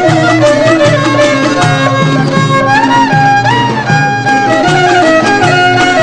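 Mazandarani folk music: a melody of held and sliding notes over a steady rhythmic beat, with a short run of sliding notes about three seconds in.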